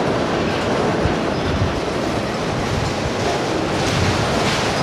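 Freight train of enclosed autorack cars rolling past close by: a steady rumble of steel wheels on the rails.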